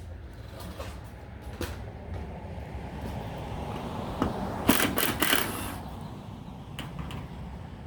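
Scattered clicks and knocks of parts and tools being handled during a car roof-rack install, with a louder clatter of several knocks about four to five and a half seconds in, over a steady low hum.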